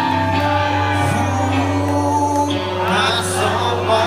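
Live country-rock band playing loud, with singing over steady held guitar chords and bass.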